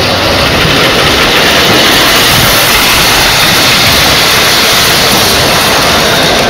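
O-gauge model train running past close by on the three-rail track: a steady, loud rumble of wheels and motors.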